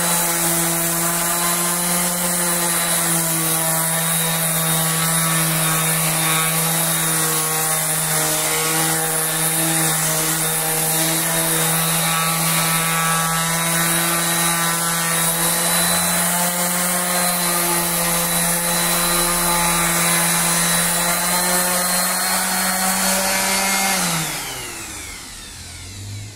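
DeWalt random orbital sander running steadily as it sands a wooden board, a constant motor hum under the rasp of the pad. About 24 seconds in it is switched off and its pitch falls away as it winds down.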